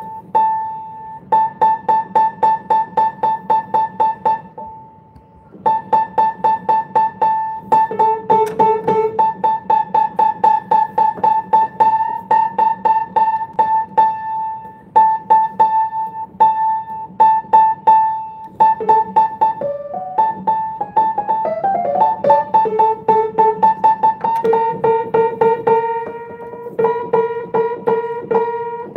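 Upright piano being tuned: one high note struck rapidly and repeatedly, about four to five times a second, while the tuning lever turns its pin, so the pitch creeps slightly upward. Now and then the note an octave below sounds with it for comparison, and a short run of notes breaks in about two-thirds through.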